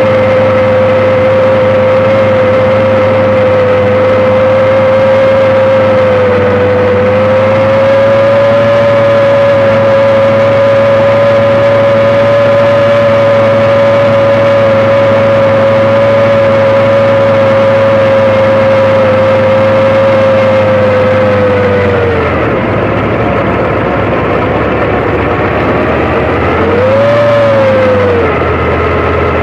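Kamov Ka-26 helicopter's twin radial piston engines and coaxial rotors running with a steady, high engine tone. About three quarters of the way through, the pitch and level drop. Near the end there is a brief rise and fall in pitch.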